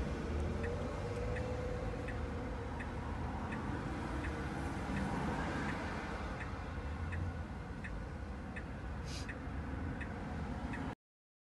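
A car's indicator ticking steadily, about three ticks every two seconds, over a low cabin hum, with a brief hiss about nine seconds in; the sound cuts off abruptly near the end.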